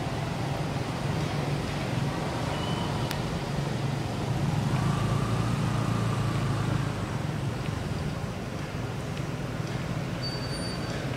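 Steady low rumble of motor traffic, swelling for a few seconds in the middle, with a few faint short high-pitched peeps.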